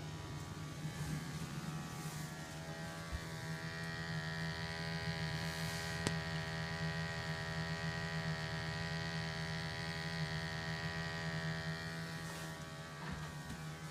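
Vaillant Ecomax gas boiler running with a steady low hum. From about three seconds in, a higher buzzing whine from a flue gas analyser's sampling pump joins it and fades near the end, where there are a few light clicks.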